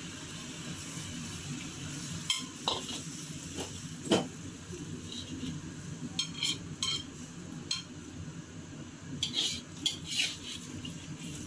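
Metal cooking utensil scraping and clinking against a pan of stir fry, in scattered strokes with the sharpest clink about four seconds in. A low sizzle runs underneath.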